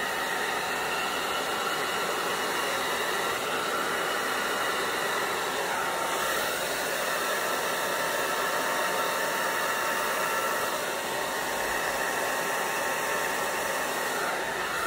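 Handheld hair dryer running steadily on its lower setting: a constant rush of air with a faint whine. Its owner feels the dryer may be dying.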